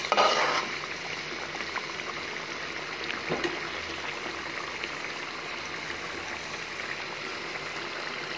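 Hilsa fish pieces cooking in a thick spice masala in a pot: a steady bubbling sizzle with faint scattered pops, as the masala reduces until its oil separates. A spoon scrapes and stirs the pot briefly at the start.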